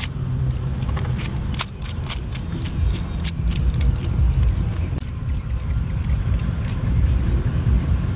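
A steady low rumble with a run of sharp clicks and crackles from a fish grilling in a wire grill basket over charcoal, dense for the first few seconds and thinning out after about halfway.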